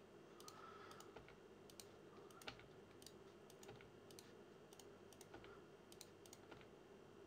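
Near silence with faint, scattered clicks of a computer keyboard and mouse: the G key pressed again and again, with mouse clicks, while vertices are dragged.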